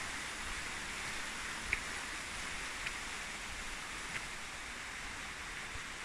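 Steady rushing water, an even hiss with no pauses, broken by a few faint short clicks about a second apart.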